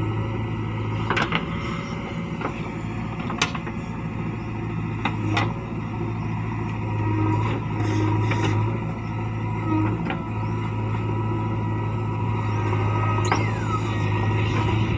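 JCB 3DX backhoe loader's four-cylinder diesel engine running steadily under digging load, its level shifting as the backhoe works, with a few sharp knocks along the way.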